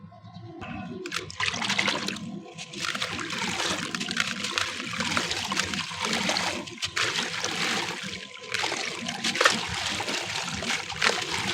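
Wet black concrete or cement crumbling in water: a gritty crunching and crackling with dribbling water. It starts about a second in and pauses briefly a few times.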